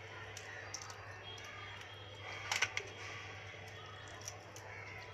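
Crab shell cracking and crackling as a blue crab is cleaned by hand, its shell and gills pulled apart: small clicks throughout and a quick cluster of sharp cracks about two and a half seconds in. A low steady hum runs underneath.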